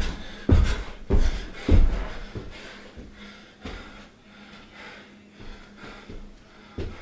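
A run of heavy thumps, about one every 0.6 s, stops about two seconds in. Heavy, snorting breathing follows, from a person exercising while sick.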